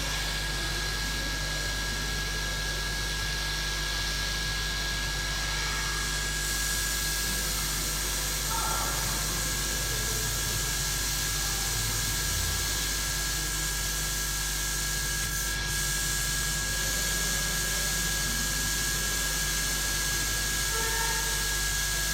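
Hot air rework gun blowing at airflow setting 5, a steady hiss with a faint steady whine, as it heats underfill glue on a phone circuit board.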